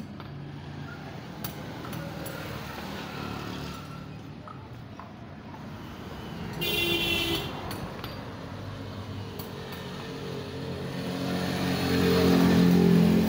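Fiat Al-Ghazi tractor's diesel engine running steadily, with a short horn-like toot about seven seconds in; the engine sound builds louder near the end.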